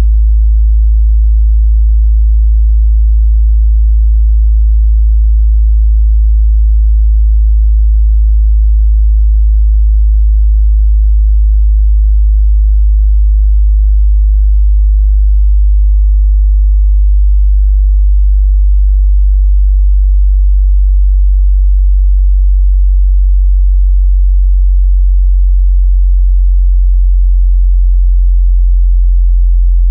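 Synthetic sub-bass sine tone, loud and continuous, sitting very low in pitch, with a slight shift in its upper part a little after twenty seconds.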